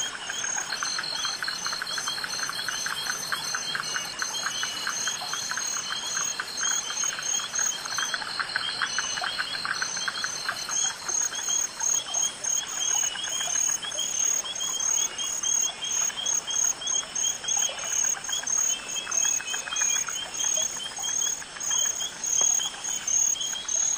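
Evening chorus of crickets chirping in steady pulses about twice a second, with a high even insect trill that stops about halfway through. Lower down, a fast clicking chorus thins out after about 11 seconds.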